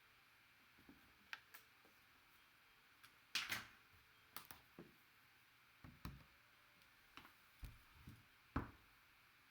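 Faint handling noises: about a dozen soft, scattered clicks, taps and knocks, the loudest a little past three seconds in and near the end.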